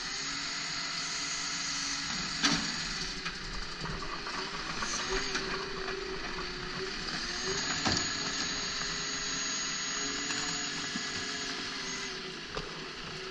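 Side-loading garbage truck's automated arm lifting and emptying a wheelie bin: a steady hydraulic whine and wavering machine hum over the running truck engine, with two sharp bangs from the bin and arm, about two and a half seconds in and again about eight seconds in.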